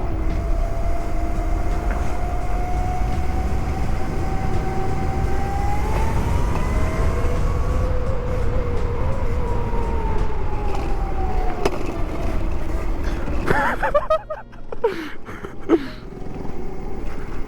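Modded Razor MX500 electric mini dirt bike with an EC4P Lite brushless motor riding: the motor and chain whine rises and falls with speed over heavy wind rumble on the camera. About fourteen seconds in the wind rumble drops away as the bike slows.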